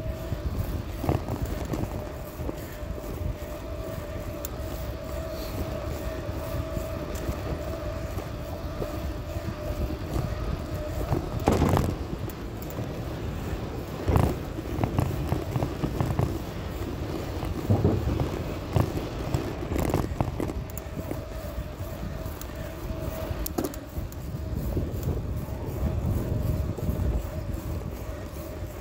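Bicycle riding on a paved trail, heard from a phone on the handlebars: tyre rumble and wind on the microphone with a steady hum. From about twelve to twenty seconds in come a string of knocks and rattles as the wheels cross the planks of a wooden boardwalk bridge, the loudest right at the start.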